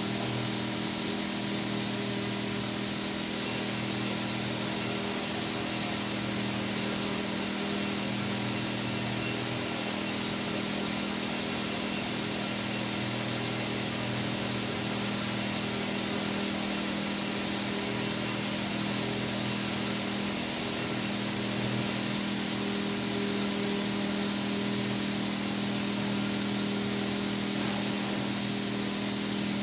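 Steady machine drone: a constant low hum with a hiss over it, unchanging throughout.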